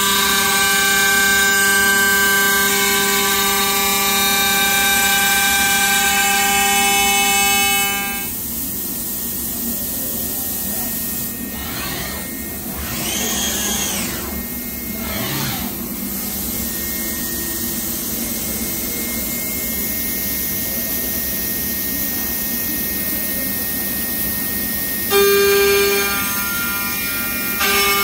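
CNC machining centre cutting an aluminium extrusion. For the first eight seconds there is a loud steady whine of many tones, then a quieter running sound with a pitch that rises and falls a few times. A short loud whine returns about 25 seconds in and again at the very end.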